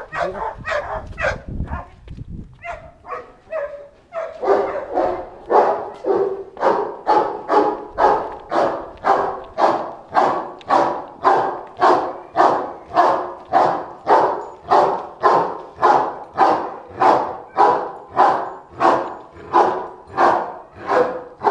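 Large grey mastiff-type dog barking, a few irregular barks at first, then settling after about four seconds into a steady, unbroken run of about two barks a second.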